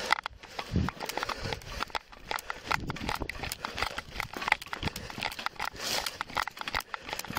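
Fast, irregular knocking and rubbing as a body-worn camera jostles against an officer's uniform and gear, mixed with hurried footsteps on pavement.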